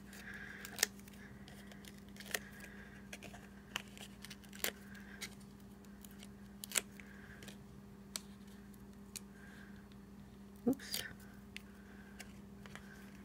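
Faint scattered clicks and crinkles of fingers picking and peeling the backing liners off foam adhesive dimensionals on the back of a cardstock panel, with a few sharper ticks among them.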